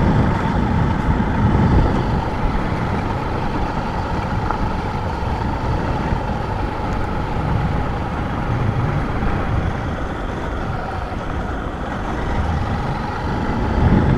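Motorcycle on the move: its engine running steadily under a rush of wind and road noise on the rider's microphone.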